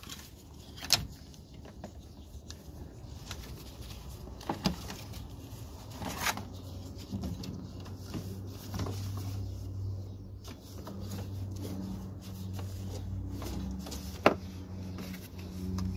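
Scattered clicks and knocks of a ratchet and power bar on a Ford Transit's serpentine-belt tensioner, and the belt being handled at the pulleys. A low steady hum comes in about halfway through.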